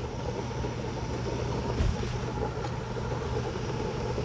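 Pot of soup boiling on the stove, a steady busy bubbling over a steady low hum.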